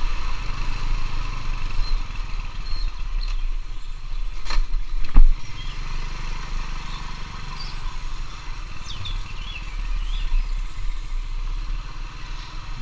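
Small motor scooter engine running steadily at low riding speed, heard from the rider's seat. A sharp knock comes about five seconds in, the loudest moment.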